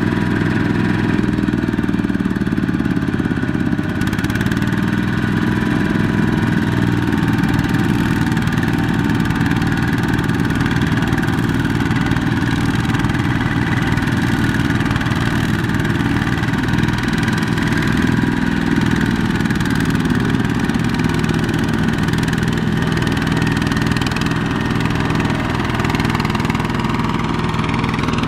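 Single-cylinder diesel engine of a two-wheel walking tractor running steadily under load as it drags a trailer of rice sacks through deep, sticky mud.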